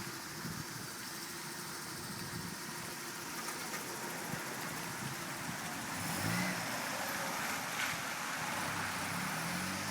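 Mazda Miata's four-cylinder engine revving as the car drifts on a wet road, over a steady hiss of rain and tyre spray. The engine note climbs louder about six seconds in and again near the end.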